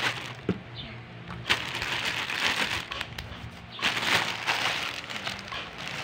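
Plastic parcel packaging crinkling and crackling as it is handled and opened, in two long rustling stretches with a few sharp cracks.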